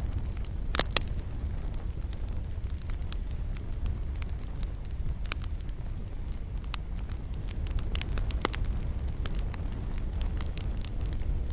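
Wood fire burning in a fireplace: a steady low rumble of flames with scattered crackles and sharp pops, the loudest pops about a second in and again near the end.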